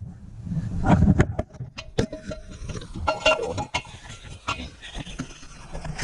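Scattered metallic clicks and knocks of hand tools and parts being worked under the truck, over a low rumble.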